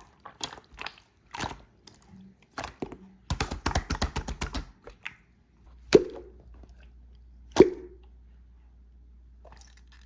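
White slime being pressed and worked by hand, giving sticky clicks and pops. A quick run of crackles comes a few seconds in, then two sharp pops, with a faint low hum in the last few seconds.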